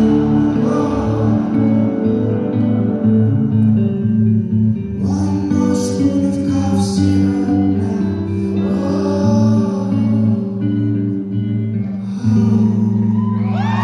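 Rock band playing live, with held chords and a sung vocal line over them. Crowd cheering swells up right at the end.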